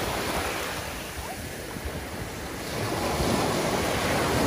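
Sea surf washing onto a beach, with wind buffeting the microphone; the wash eases about a second in and swells again about three seconds in.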